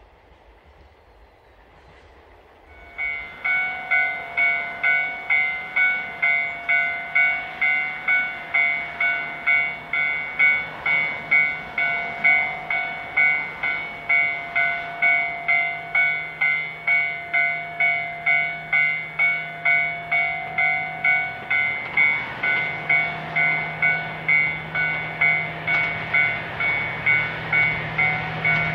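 Railway level-crossing warning bell ringing steadily about twice a second, starting about three seconds in. Under it is the low drone of an approaching DF200 diesel locomotive, which grows louder in the last several seconds.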